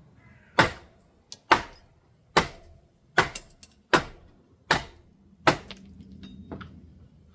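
Seven sharp knocks at an even pace, a little under one a second, like repeated hammer strikes during window removal work.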